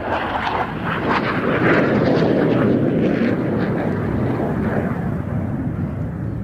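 Aero L-159A Alca single-engine turbofan jet making a fast low pass, its jet noise rising to a peak about two seconds in and then fading as it draws away.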